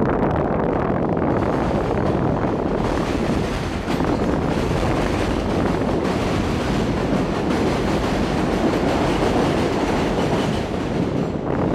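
An L train running on the elevated steel track overhead: a steady, loud noise of train wheels on the rails.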